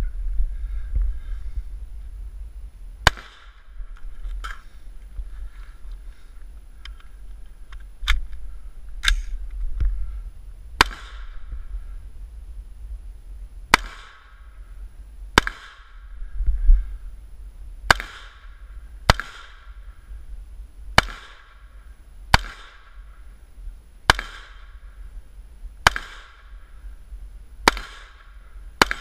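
Rifle fired at a slow, deliberate pace: about fourteen single sharp shots, one every one to three seconds, each followed by a short echo.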